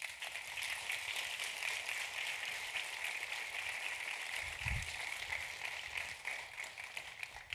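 Audience applauding steadily, starting and stopping abruptly, with a brief low thump a little past the middle.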